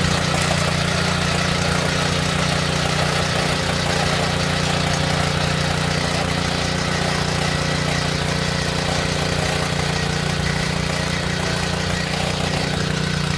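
Oshima XD1 mini tiller's small engine running steadily under load as its tines churn dry soil.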